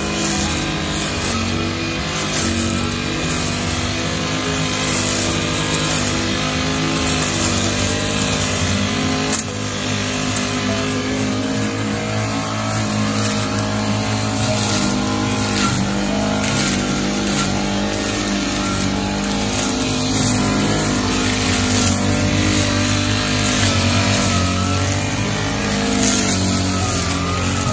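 Motor grass cutter's small engine running, its pitch shifting up and down.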